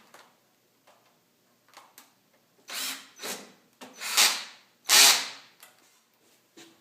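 Power drill running in four short bursts in quick succession, driving screws into the sheet-metal cabinet, with faint clicks and handling noise around them.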